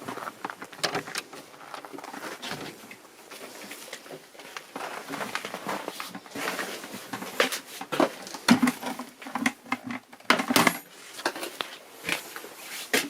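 Irregular clicks, knocks and clattering of things being handled, busier and louder in the second half.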